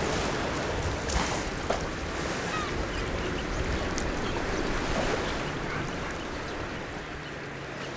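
Surf washing on a sandy beach: a steady, even rush of sea noise.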